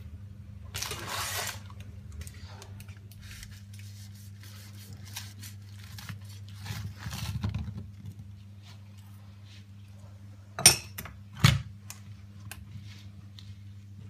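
Knife cutting through a large cheeseburger on a cutting board: soft crunching, rustling and scraping of bun, lettuce and filling, with two sharp clicks just under a second apart near the end. A steady low hum runs underneath.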